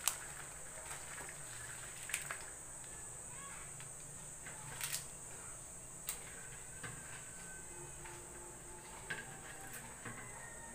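A few short sharp taps and clicks, the loudest right at the start, as tamarind flowers are tipped from a plate onto cabbage in a metal pot, over a steady faint high-pitched hiss.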